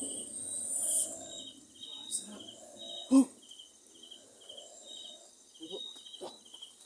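Crickets chirping in a steady pulse, about two chirps a second, over low rustling. A single sharp knock comes about three seconds in.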